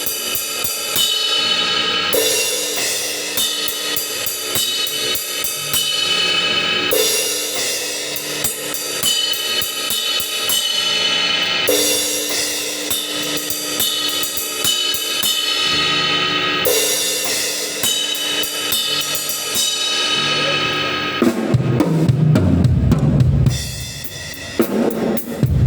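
Acoustic drum kit played in a steady groove: snare, bass drum and cymbal wash, with a cymbal crash marking every few bars. About 21 seconds in comes a loud, lower-pitched fill on the drums, then a brief dip before the beat comes back.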